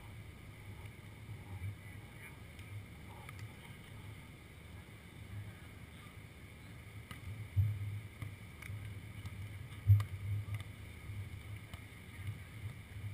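Wind buffeting the camera's microphone as a steady low rumble, with two sharp thumps, about 7.5 and 10 seconds in, the second the louder.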